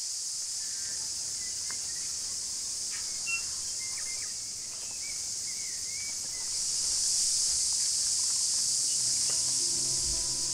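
Cicada chorus: a steady high-pitched shrill that swells louder about two-thirds of the way through, with a few short bird chirps in the first half.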